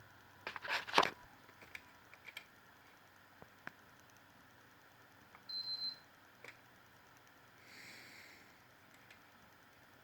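Several sharp clicks of handling, loudest about a second in, then a single short high beep from a PS4 console about five and a half seconds in, the beep of its power button being pressed on a console that will not turn on.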